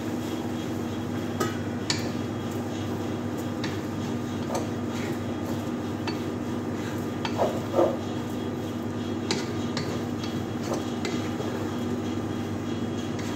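A spatula stirring and scraping in a granite-coated cooking pot on a gas burner, with scattered light clicks and two louder knocks about halfway through. A steady kitchen hum runs underneath.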